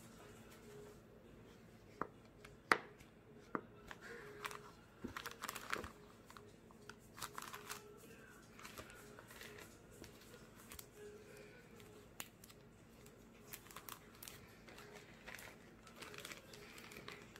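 Handling of a sunglasses case and its clear plastic sleeve: a few sharp clicks about two to three seconds in, then on-and-off crinkling and rustling of the plastic.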